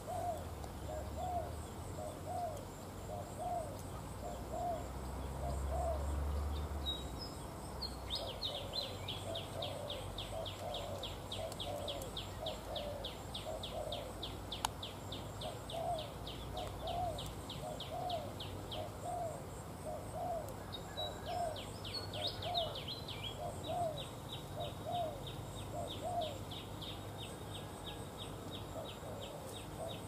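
Spotted doves cooing: a long run of short, low coos, about one or two a second. Over them, a fast high-pitched trill of rapid pulses starts about a quarter of the way in, stops briefly, then starts again.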